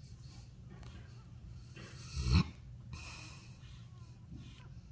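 Newborn Newfoundland puppies nursing against their mother, with soft breathing and snuffling, and one short, much louder noise about two seconds in.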